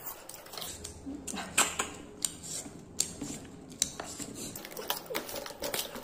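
Tableware clinking and tapping during a meal: a run of sharp, irregular clicks several times a second.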